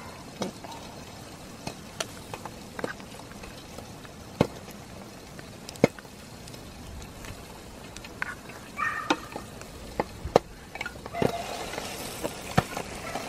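Bacon-and-egg sandwich frying in a hot sandwich maker on a camping gas stove: a steady sizzle, broken by about a dozen sharp metal clicks and clacks as the pan's handles and clasp are worked.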